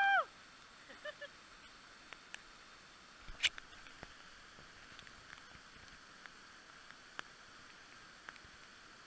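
Faint steady rush of a waterfall, with scattered small clicks and one sharp click about three and a half seconds in. A long, rising human call is just ending as it begins.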